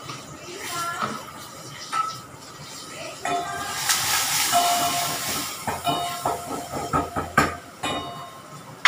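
Steel kitchen utensils clinking and scraping against pots, each clink ringing briefly, with a hiss that swells for about two seconds in the middle.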